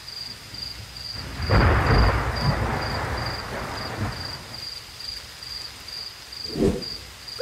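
Thunder rumbling, starting about a second and a half in, loudest about two seconds in, then fading over the next two seconds, with a short low thump near the end. Under it runs a steady rain hiss and a high insect chirp pulsing about twice a second.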